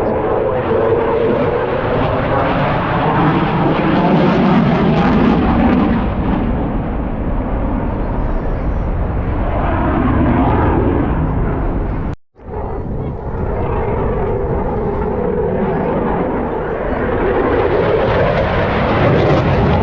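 Eurofighter Typhoon jet fighter's twin turbofans running at high power in a display pass, a loud, continuous jet noise whose pitch slowly slides up and down as the aircraft moves. The sound cuts out briefly about twelve seconds in and then resumes.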